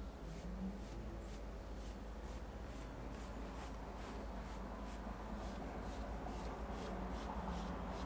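Rhythmic brushing strokes, about two to three a second, as a brush is swept over short hair to lay 360 waves.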